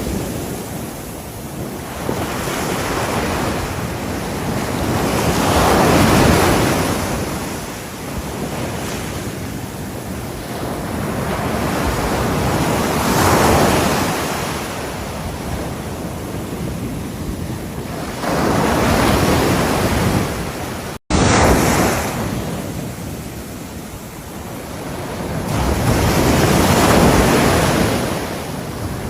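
Ocean waves washing onto a shore, swelling and falling back every several seconds, with wind noise on the microphone. The sound cuts out for a moment about two-thirds of the way through and comes straight back.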